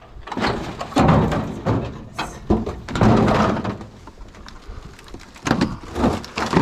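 Stacked sheets of tin being pried apart and shifted, scraping and clanking in three loud bouts.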